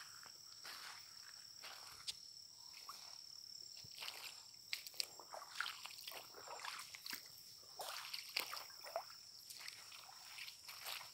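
Footsteps on a wet, muddy forest trail, irregular steps, over a steady high-pitched drone of insects.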